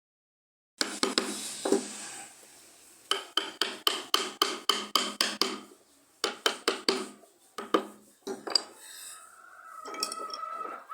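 Rapid metallic tapping and clinking in runs of sharp strikes, each ringing briefly, at about four strikes a second in the middle stretch, after a moment of dead silence at the start.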